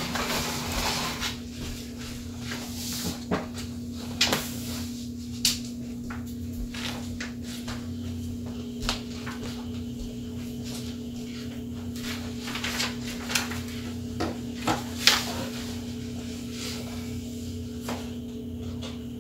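Paper handled and turned over, with scattered light knocks and taps on a wooden table, over a steady low hum.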